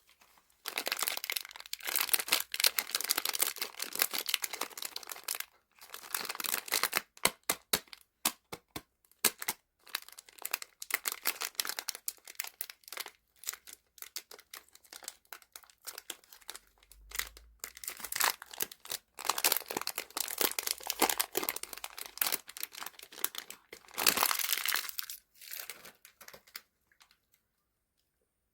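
Plastic candy wrappers and packaging crinkling and tearing as they are opened and handled, in stretches of a few seconds broken by short pauses and sharp clicks.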